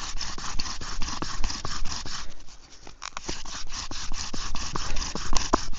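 Bow drill in use: the bow sawing back and forth in quick, even strokes as its cord spins a wooden spindle grinding on the fireboard. The top of the spindle turns in a dry coconut-husk socket with no coconut meat as lubricant. The rubbing eases briefly about halfway through.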